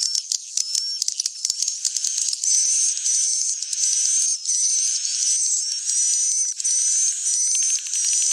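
Edible-nest swiftlet roosting call ('suara inap'), the lure played in swiftlet houses to make the birds settle and stay. It is high-pitched twittering: dense rapid clicks and chirps at first, then a short high chirp about every two-thirds of a second.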